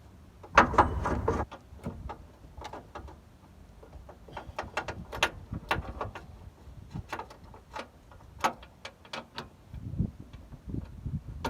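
Irregular metal clicks and clinks of a bolt and hand tools being worked into the steering rack mount, with a louder clattering scrape near the start.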